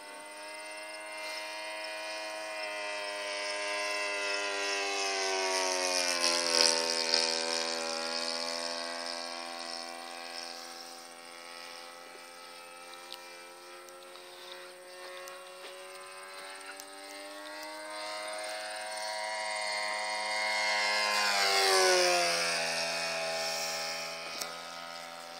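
Saito FA-80 four-stroke glow engine on a radio-controlled model Hawker Hurricane, flying in steady circuits. It grows louder and its pitch drops as the plane passes close, about six seconds in and again about twenty-two seconds in.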